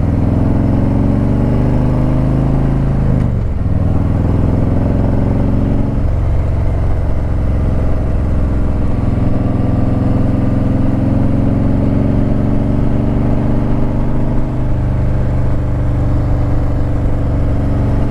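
Harley-Davidson Ultra Limited's V-twin engine running while riding up a winding mountain road. Its pitch falls over the first few seconds, then holds steady, stepping to a new pitch twice.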